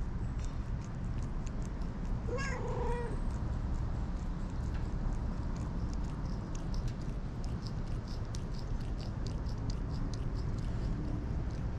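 A cat meows once, a short call about two and a half seconds in. Later comes a run of quick, soft clicks as an orange tabby cat licks a finger.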